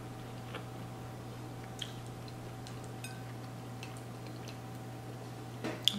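Faint, scattered small clicks and ticks from quiet closed-mouth chewing of a soft pretzel dog, with a sharper click near the end, over a steady low hum.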